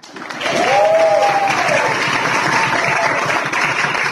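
Guests applauding, the clapping swelling up about half a second in and then holding steady. A couple of voices call out over it at first, rising and falling in pitch.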